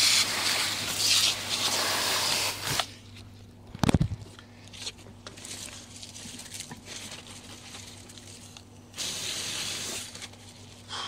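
Water spraying from a garden hose onto smouldering shed wood in two bursts, a long one at the start and a shorter one near the end, with a single knock about four seconds in.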